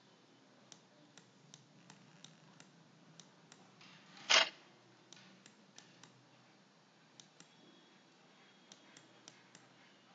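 Faint, irregular clicks of a stylus tapping on a tablet as handwriting is written, with one short, louder sound about four seconds in.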